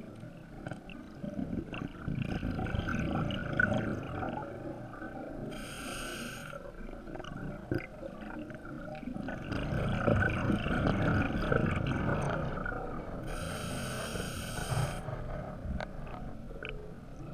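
A scuba diver's regulator breathing underwater: a hissing breath in through the regulator about five and again about thirteen seconds in, each followed by several seconds of low, gurgling exhaled bubbles.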